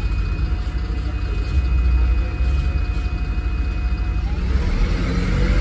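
Inside a 2009 MAN 16.240 bus with a Voith automatic gearbox: the diesel driveline runs with a heavy low rumble and a faint steady high whine. About four seconds in the whine fades and the noise grows louder.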